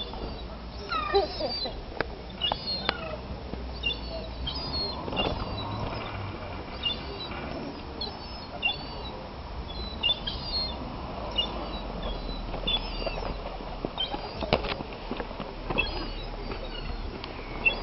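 Birds calling, short high chirps repeating throughout, with a few sharp clicks over a steady low background rumble.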